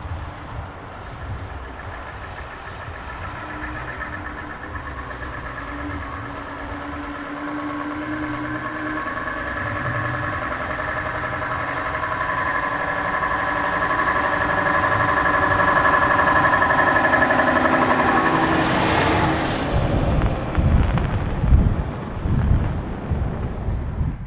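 Scania R580's V8 diesel engine running as the timber truck drives closer, growing steadily louder. It passes about 19 s in with a brief rushing sweep, followed by a low uneven rumble.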